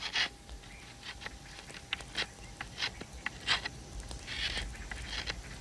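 A series of light, irregular clicks and taps, with a short scraping rustle about four and a half seconds in.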